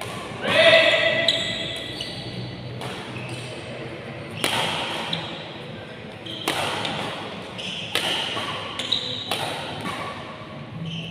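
Badminton rally: sharp racket strikes on a shuttlecock, roughly one or two a second, with short high squeaks of court shoes between the hits.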